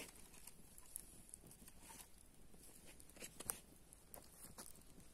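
Small wood campfire crackling faintly, with scattered irregular snaps and one sharper pop about three and a half seconds in.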